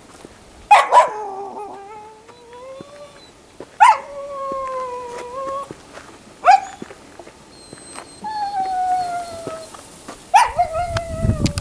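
A dog howling and whining: four drawn-out cries, each starting sharply and then held on a slowly gliding pitch for a second or two. Wind rumbles on the microphone near the end.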